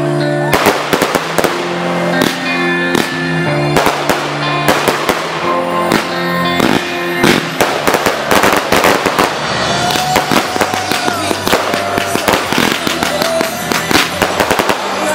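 Fireworks going off in a dense, fast run of bangs and crackles, several a second, from aerial shells and a multi-shot cake, with music playing underneath.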